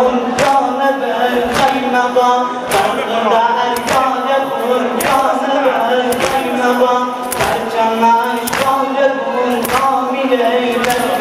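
Men chanting a Muharram mourning lament together, over rhythmic chest-beating (sinazani): open-hand slaps on the chest landing a little more than once a second.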